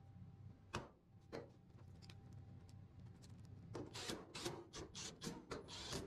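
Faint, scattered clicks and knocks of a dryer's sheet-metal cabinet panels and tools being handled during reassembly, coming more often in the last couple of seconds.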